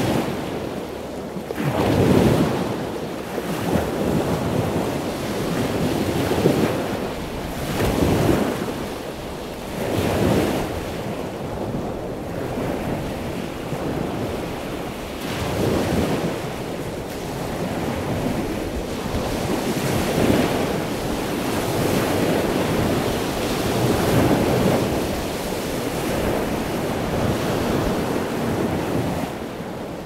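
Ocean surf: waves breaking and washing up a sandy beach, swelling and ebbing in surges every few seconds.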